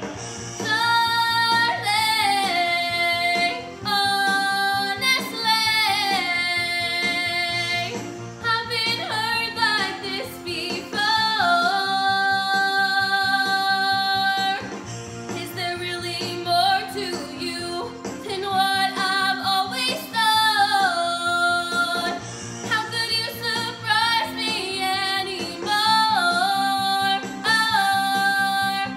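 A teenage girl singing a song solo over instrumental accompaniment, holding long notes with vibrato between short phrase breaks.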